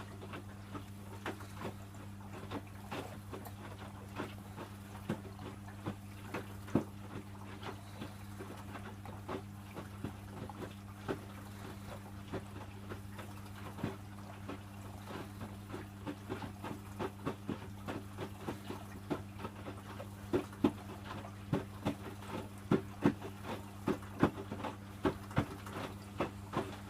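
Electrolux W455H commercial washing machine in its wash, the drum turning the load through the water: irregular slaps and splashes over a steady low hum, the splashes coming more often in the second half.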